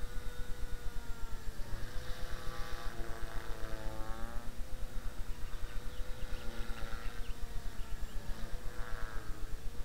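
Blade 300 X electric RC helicopter flying, its motor and rotor whine rising and falling in pitch as it manoeuvres, with a sharp climb in pitch about four seconds in and another near the end.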